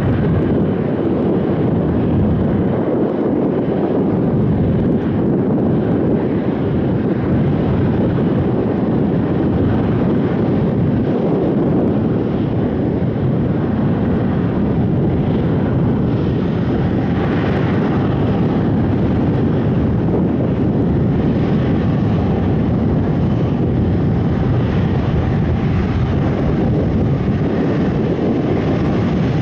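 Airbus A330 MRTT's twin Rolls-Royce Trent 700 turbofans running at taxi power as the aircraft rolls past: a steady, continuous low rumble of jet noise.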